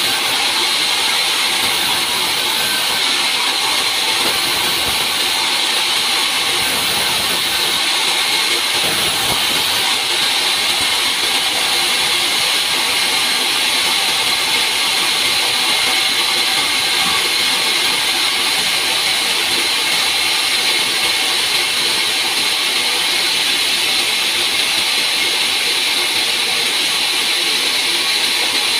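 Large band saw mill running and sawing log slabs: a steady high-pitched hiss and whine with no let-up.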